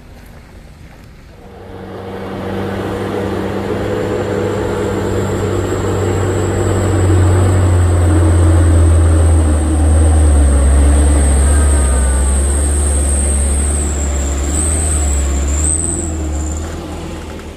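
A light diesel truck's engine running as the truck comes down a rough dirt slope and passes close by, growing louder to a peak and then easing off. A steady high whine runs over it, wavering and stopping near the end.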